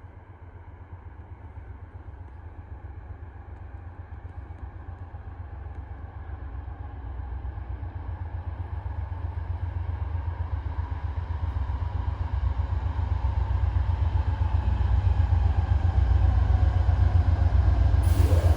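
Amtrak 51's diesel locomotive approaching, its low engine rumble growing steadily louder. A sudden burst of noise with a brief rising tone comes near the end.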